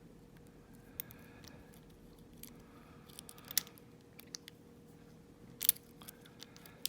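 Lock pick (a hook) raking and lifting the pins inside a Master Lock No. 29 padlock's cylinder: faint metal scratching with scattered sharp clicks, the loudest a little over halfway through.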